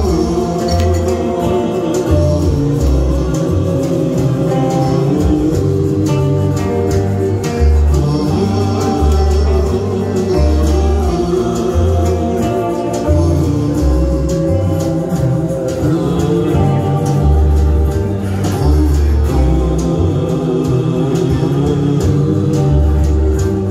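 Live band playing a song with acoustic guitar, keyboard, woodwind and double bass over a steady, evenly pulsing bass line.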